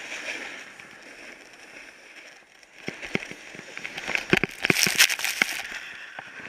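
Snowboard scraping and chattering over packed snow, then a run of loud scrapes and knocks from about three to five and a half seconds in as the rider falls back and slides through the snow on his backside.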